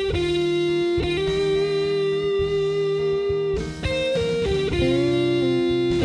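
Electric guitar playing a lead line of long held notes, with one note bent up and back down near the end, over a steady low bass part.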